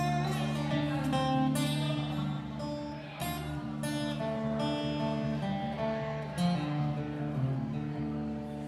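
A single acoustic guitar playing solo, chords strummed every second or two with the notes ringing on between strokes.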